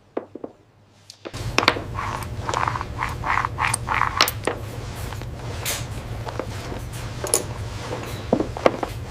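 Steady low machine hum with many small metallic clicks and clinks, starting a little over a second in.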